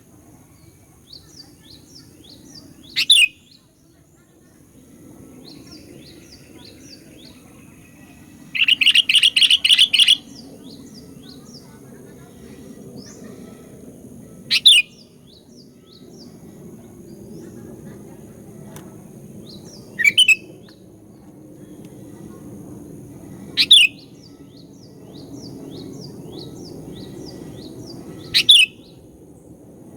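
Sooty-headed bulbul (kutilang) calling: sharp, loud call notes every few seconds, with a rapid run of about eight notes around nine seconds in. Fainter short chirps and a low background rumble continue between them.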